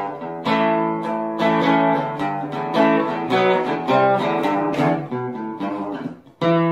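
Background music of strummed guitar chords, ending on a final chord that rings on near the end.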